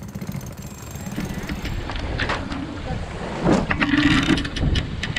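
Wind buffeting the microphone on a sailboat under way, with water rushing along the hull. About halfway through the rush grows louder, with scattered knocks and a brief voice.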